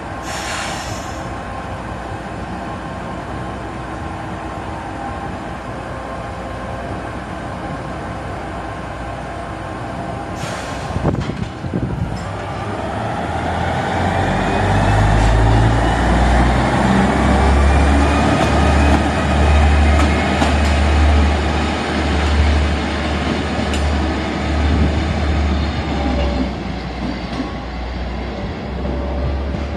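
Keiyo Rinkai Railway centre-cab diesel locomotive idling steadily, with two short hisses of air, one about half a second in and one about eleven seconds in. Its engine then opens up into a loud pulsing low rumble, rising in pitch, as the locomotive pulls away light on its run-around move.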